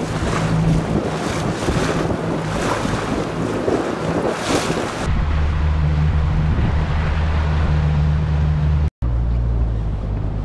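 A Zodiac inflatable boat's outboard motor running with a steady low hum, under wind buffeting the microphone and water splashing. About halfway the wind and splash noise drops away, leaving the motor hum plain. There is a brief dropout near the end.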